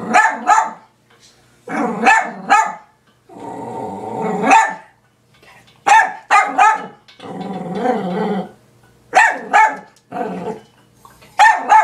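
Dachshund barking in quick groups of two or three, with two longer growls between the groups, at a cat lying in its bed.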